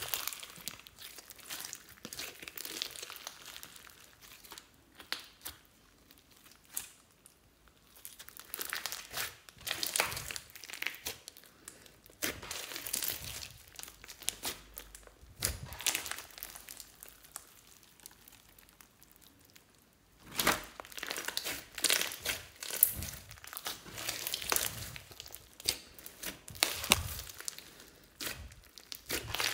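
Hands kneading, pressing and folding clear slime packed with beads and glitter, making irregular sticky crackles and clicks. The crackling comes in busy stretches, with two quieter pauses in the handling.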